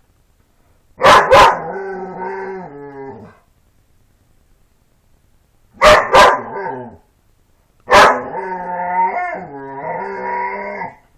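A dog 'talking' in three bouts. Each bout opens with one or two sharp barks and runs into a drawn-out, wavering howl-like whine. The last bout is the longest, lasting about three seconds.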